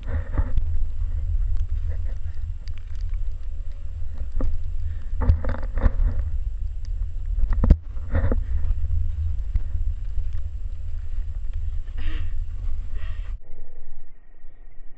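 Wind buffeting a camera microphone: an uneven low rumble with a few short sounds over it, which stops abruptly near the end, leaving much quieter air.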